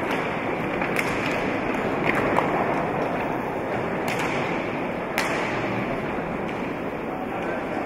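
Roller hockey game sound in a sports hall: steady crowd and hall noise with a few sharp clacks of sticks and ball on the rink, the loudest about two and a half seconds in.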